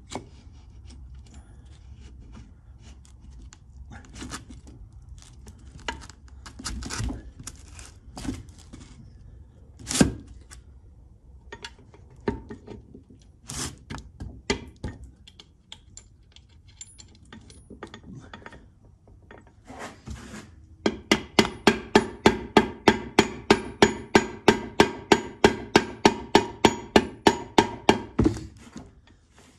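A run of quick, even hammer taps, about four a second for some seven seconds, driving a shaft into a Dodge three-speed transmission casing, each tap leaving a metallic ring. Before the taps come scattered clicks and knocks of the parts being handled and fitted.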